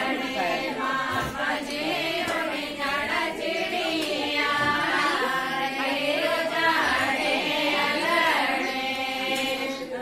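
A group of women singing a Pahari suhag geet, a Himachali wedding song, unaccompanied, in long drawn-out sung lines.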